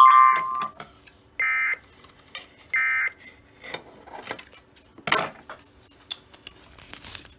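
EAS end-of-message data bursts from a NOAA Weather Radio receiver: three short warbling digital bursts about a second and a half apart, the first the loudest. They mark the end of the severe thunderstorm warning and are followed by scattered clicks, with a sharp clatter about five seconds in.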